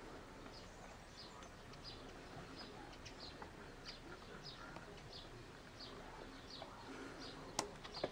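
A small bird chirping faintly and steadily, a short high call about twice a second. A sharp click comes near the end.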